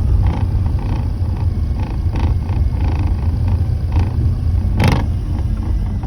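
Steady low drone of a Porsche 987.2 on the move, with light irregular rattling clicks from the rear driver's side and a sharper one near five seconds in. The rattle comes from the metal panel at the front of the engine bay.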